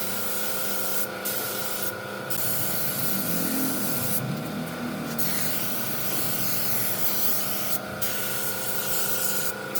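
Spray gun hissing steadily, stopping briefly about five times as the trigger is let go, over a steady motor hum, likely a compressor. Typical of spraying a finish onto woodwork.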